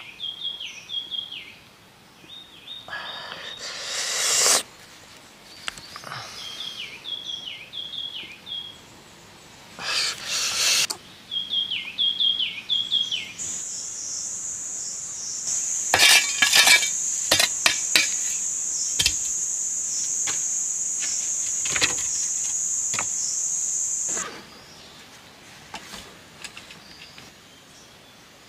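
Forest ambience: a bird calls in quick runs of short falling chirps, broken by two brief rushes of noise. About halfway through a steady high-pitched insect buzz sets in, with scattered clicks over it, and cuts off suddenly a few seconds before the end.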